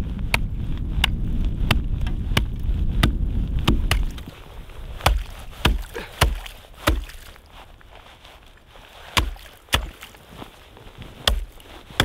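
A string of sharp single knocks at uneven spacing, from about four seconds in. Before them, a steady low rumble with quick clicks running through it.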